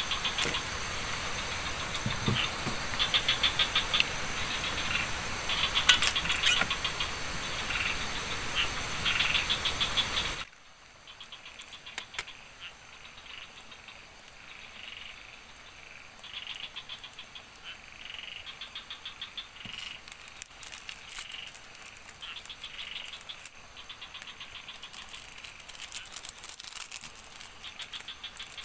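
Forest insects chirping in rhythmic pulsed trills over a steady hiss. The hiss cuts off abruptly about ten seconds in, and the chirping goes on more quietly.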